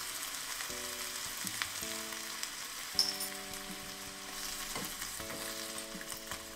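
Chicken thigh and sliced onion sizzling and crackling in oil in a small saucepan as a little added water heats, with a sharp click about three seconds in.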